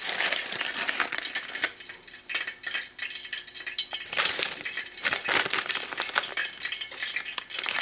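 Brittle dry rice vermicelli being handled, giving an irregular rattle with many small clicks and clinks.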